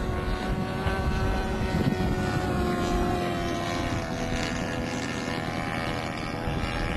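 Radio-controlled aerobatic model airplane's engine and propeller running at a steady pitch as the plane comes in to land, growing quieter about four seconds in as it touches down and rolls out.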